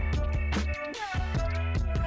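Background music with a steady beat and deep bass.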